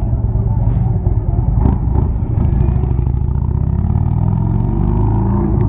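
Motorcycle engine running close up while riding, its revs climbing steadily from about two seconds in, then holding.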